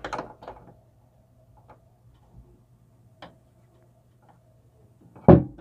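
Small plastic toy figures and a plastic playset being handled: a few light clicks and taps spread over several seconds, then a louder knock near the end. A faint steady hum runs underneath.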